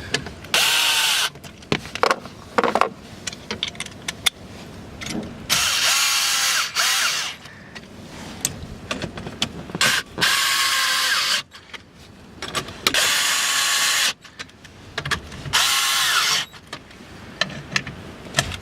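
Power drill running in about five short bursts, its motor pitch rising and falling in each, as it drives in the fuse box bracket bolts.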